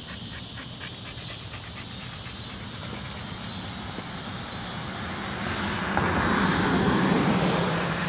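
A vehicle passing on the street, its noise swelling from about five seconds in to a peak around six to seven seconds and easing off near the end, over a steady background of traffic noise.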